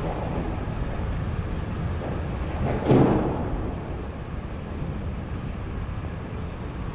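Night city street ambience: a steady low hum of distant traffic, with one brief, louder swell about three seconds in.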